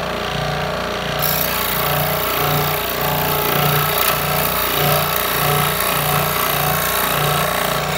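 Scroll saw running, its reciprocating blade cutting through the plastic tip of a ballpoint pen. A steady mechanical hum pulses evenly underneath, and the sound turns hissier about a second in.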